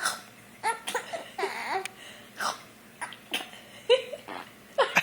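A baby giggling and babbling in short bursts, with little gaps between them.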